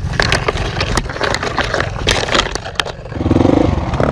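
Twigs and branches snapping and brush scraping against a dirt bike and its rider as they force through thick undergrowth, over a low engine rumble. About three seconds in, a dirt bike engine note rises, louder and steady, for about half a second.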